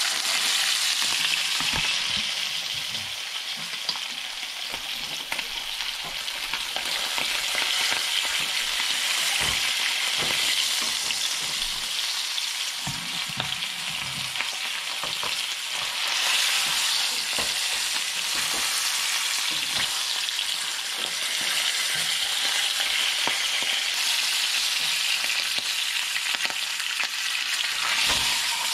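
A whole pompano frying in hot oil in a nonstick frying pan over high heat: a steady sizzle, with a few light clicks and knocks.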